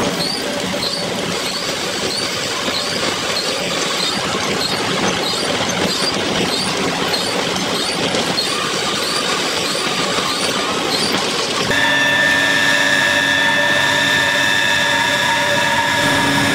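Bitumen feed belt conveyor running: a steady mechanical rumble with a faint high squeak repeating about twice a second. About two-thirds of the way in it changes suddenly to a steady machine hum with a high whine.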